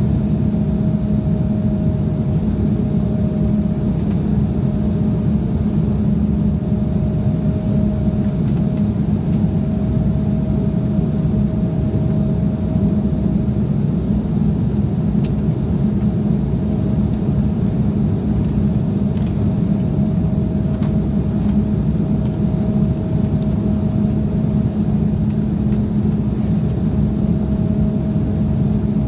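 Steady cabin drone of an Embraer 175 climbing after takeoff, heard inside the cabin: its GE CF34-8E turbofan engines and the rushing airflow, with a steady low hum and a fainter higher steady tone.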